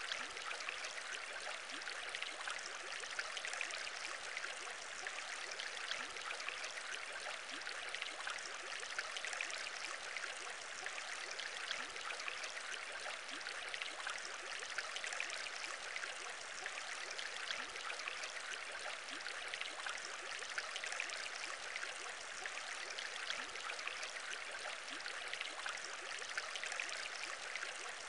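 Aquarium air bubbles bubbling steadily: an even, unbroken stream of many tiny bubble pops.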